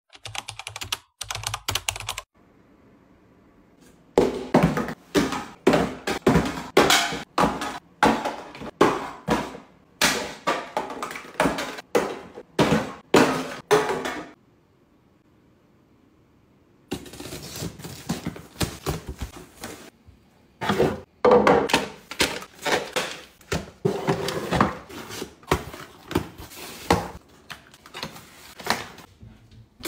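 Packaged drinks (plastic bottles, cans and paper cartons) and cardboard boxes being handled: quick runs of close knocks, taps and thuds as items are dropped into a box and stacked. The runs stop twice briefly, once near the start and once about halfway.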